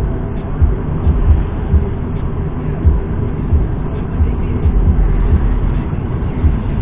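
Steady low road rumble of a car driving at highway speed, heard inside the cabin through a dashcam microphone: tyre and engine noise with irregular low thumps.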